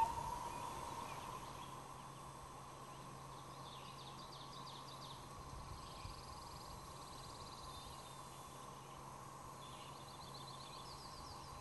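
Quiet lake ambience. A common loon's long call dies away in an echo in the first second, then a small songbird gives faint, high, rapid trills twice, in the middle and near the end.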